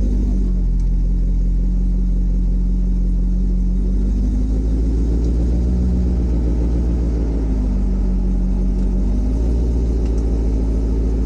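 C6 Corvette's LS2 V8 idling through its Borla exhaust in stock form, a steady low rumble whose pitch lifts slightly a couple of times. Wind buffets the microphone.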